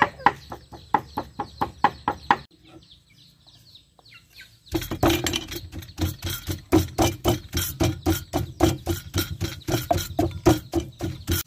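A cleaver chopping on a wooden board in quick regular strokes, then a wooden pestle pounding a moist herb paste in a mortar, about four thuds a second.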